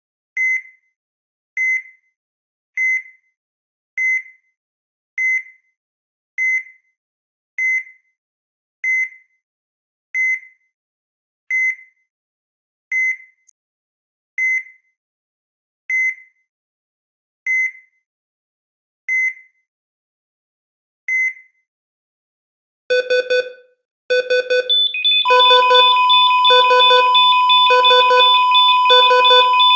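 Electronic EKG heart monitor beeping once per heartbeat, the beeps slowing from about one every 1.2 seconds to one every 2 seconds. After a pause and a quick flurry of beeps near the end, a pulsing alarm sounds with a steady unbroken tone under it, the monitor's alarm and flatline tone.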